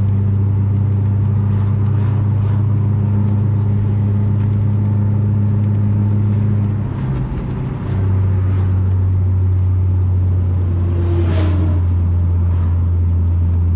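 A car's engine and road noise heard from inside the cabin while driving: a steady low drone. The drone dips briefly about seven seconds in and comes back at a slightly lower pitch. Near the end there is a short whoosh.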